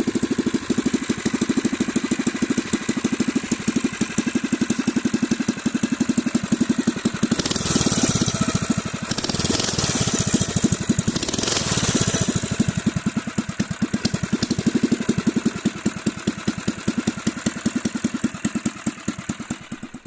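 Four-stroke engine of a Fat Moto motorized bike idling through a custom heat-wrapped exhaust pipe, with the pulsing wah-wah idle that the pipe gives it. The engine is revved up twice around the middle.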